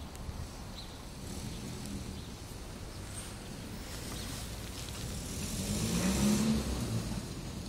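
A car driving past, getting louder to a peak about six seconds in and then fading.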